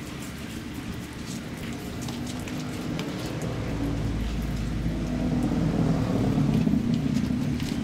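Water spraying onto a motorcycle as it is washed, over a steady low hum that grows louder about halfway through.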